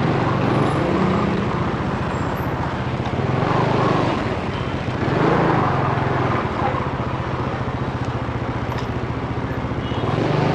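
Motorcycle engine running at low road speed, with road and wind noise; the engine note swells briefly a couple of times.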